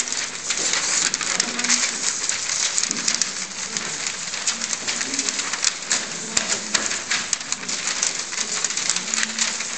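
Many sheets of paper rustling and crackling as several hands shuffle, lift and stack piles of printed sheets on a table, a dense run of small crisp rustles.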